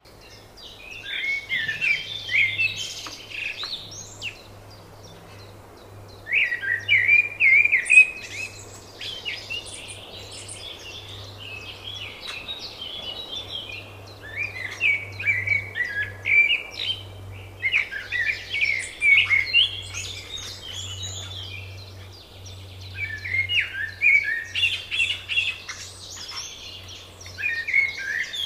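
Songbirds singing in spring, with warbling phrases of two to three seconds coming again every few seconds. A faint steady low hum runs underneath.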